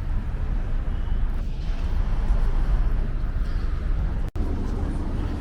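Steady low rumble of city street traffic, with the sound cutting out for an instant about four seconds in.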